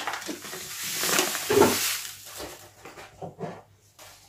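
Sugar poured from a paper packet into a large stainless steel pressure-cooker pot: a grainy hiss of sugar landing on metal that swells and then tails off about two seconds in, followed by a few faint knocks.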